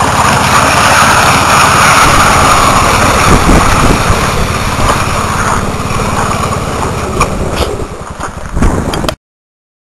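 Two-stroke snowmobile engine running steadily under load while it tows another sled over bare dirt and gravel, with the scrape and rattle of the skis on the ground. The sound cuts off suddenly near the end.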